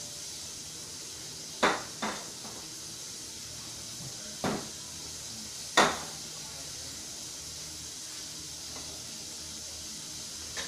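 Four short clacks and knocks of cookware being handled and set down on a stainless steel counter and hotplate, the first and last loudest, over a steady high hiss.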